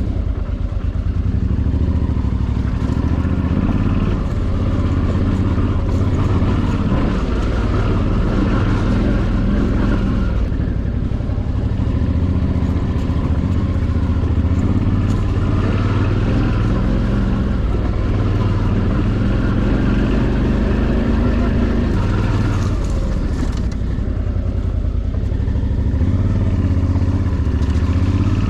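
Suzuki V-Strom DL650's 645 cc V-twin engine running steadily under way, its pitch shifting up and down a little with the throttle.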